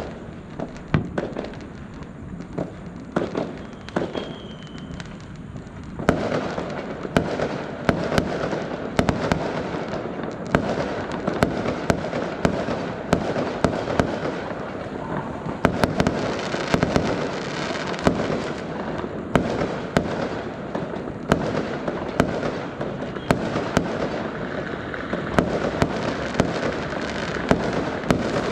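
Fireworks going off: separate sharp bangs for the first few seconds, then from about six seconds in a dense, continuous crackle with many sharp cracks.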